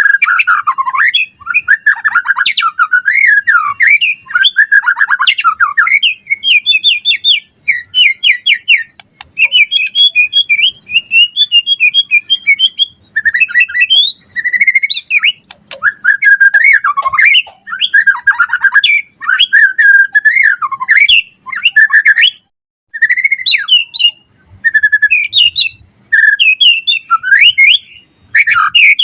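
White-rumped shama (murai batu) singing a loud, fast, varied song of rapid whistled phrases, trills and chattering notes, with barely a break between phrases.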